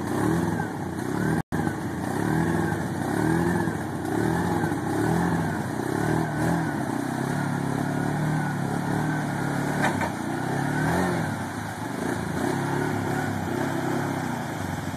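ATV engine revving up and down over and over, about once a second, as the quad labours through seat-deep muddy water. Around the middle it holds a steadier rev for a couple of seconds. About a second and a half in, the sound cuts out for an instant.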